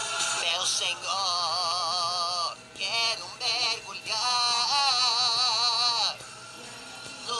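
Male voice singing a Brazilian gospel worship song over a backing track, wordless held notes with wide vibrato: one long note about a second in and a longer one around the middle, then a quieter musical stretch near the end.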